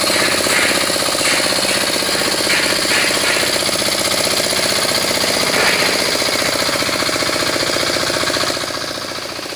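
Hand tractor engine running with a rapid, steady knocking beat as it drags its cage wheels and harrow through a flooded rice paddy, puddling the mud to ready it for planting. The sound drops slightly near the end.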